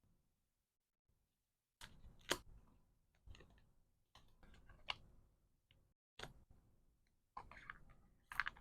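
Hands handling small items for packing: a series of sharp clicks and short scraping handling noises with brief silences between them, the sharpest click about two seconds in.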